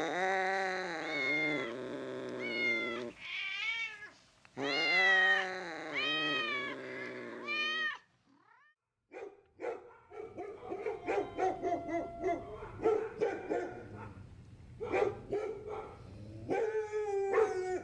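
A kitten meowing over and over, about seven rising-then-falling meows in the first eight seconds. After a pause of about a second, a pack of hounds barking and yelping over one another.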